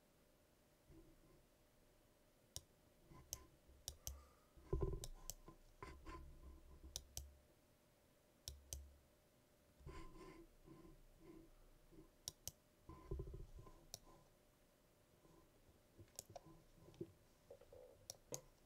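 Computer mouse clicking, faint and scattered, often in quick pairs like double-clicks, with a few soft low thuds between them.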